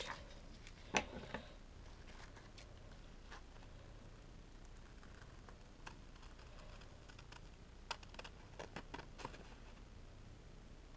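Scissors snipping through paper backed with tissue paper, heard as scattered faint clicks: a couple about a second in, then a quick run of snips around eight to nine seconds in.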